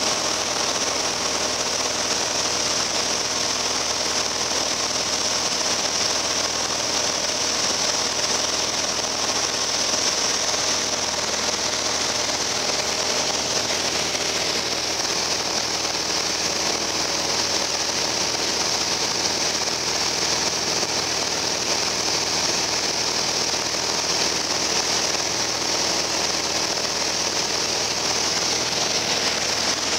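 Steady cabin noise of a Piper Cherokee Arrow light aircraft in level flight: the piston engine and propeller running at a constant setting, with a hiss of air rushing over the cabin.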